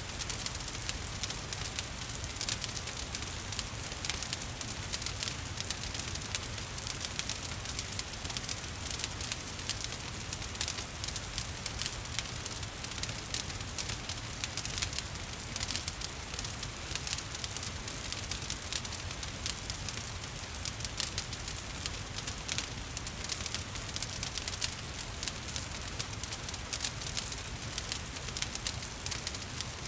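Wood fire crackling, with many small sharp pops, over a steady wash of rain.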